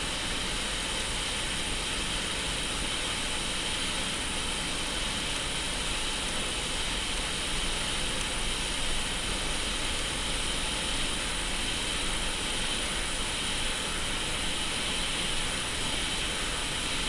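Hot air rework station blowing a steady stream of air through its nozzle: a continuous, even hiss.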